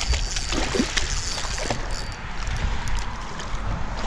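Wind rumbling on the microphone, with a few faint scattered clicks.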